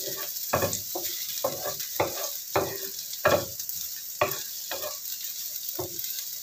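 Sliced shallots, garlic and ginger sizzling in hot oil in a non-stick frying pan, fried until golden brown, while a wooden spatula stirs them, scraping across the pan about twice a second.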